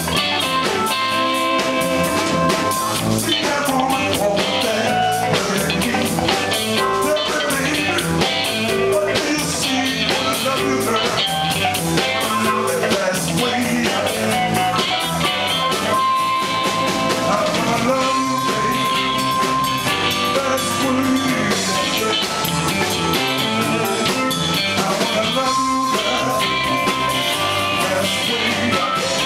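Live blues band playing: harmonica played through a microphone in long held notes over electric bass, electric guitar and a drum kit.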